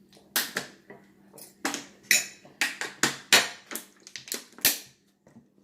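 Eating noises over plates of chili cheese fries: a run of short, irregular clicks and scrapes, about two a second, that stops about five seconds in.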